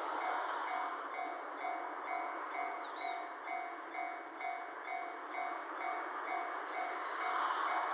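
Japanese railway level-crossing alarm ringing its repeated electronic 'kan-kan' tone at about two strokes a second, over a steady rushing noise. Two brief high squeals cut in, about two seconds in and near the end.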